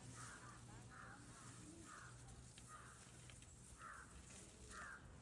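A bird calling faintly outdoors, short rough calls repeated about once a second.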